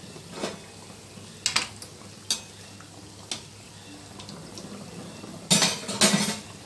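Samosas deep-frying in a steel kadai of oil, a faint steady sizzle, while a metal spoon knocks and scrapes against the pan several times, loudest and longest about five and a half seconds in.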